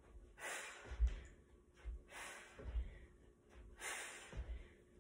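A woman breathing hard from exertion, three forceful exhalations about every second and a half, with dull thuds of bare feet landing and stepping on a rug-covered floor between them, the loudest about a second in.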